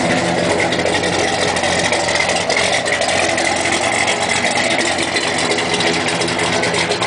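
1970 Chevelle SS's 396 cubic-inch L78 big-block V8, a 375 hp solid-lifter engine, idling steadily.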